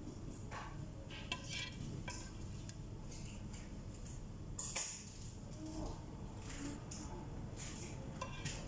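A slotted serving spoon knocks and scrapes in a pot as cooked broccoli is scooped out and dropped onto a plate, making scattered light clinks and knocks. The loudest knock comes about five seconds in.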